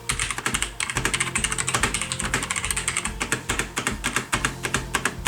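Continuous fast typing on a Razer BlackWidow Tournament Stealth mechanical keyboard with Razer Orange tactile, non-clicky switches. It makes a dense, unbroken run of short key strikes, many per second.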